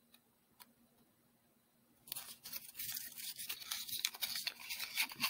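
Origami paper crinkling and rustling under the fingers as a flap is folded and pushed inside the model. Near silence at first, then from about two seconds in a steady crackle of small paper rustles.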